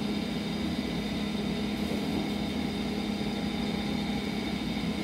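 A steady low machine hum, such as a room appliance's motor, with faint steady whining tones above it.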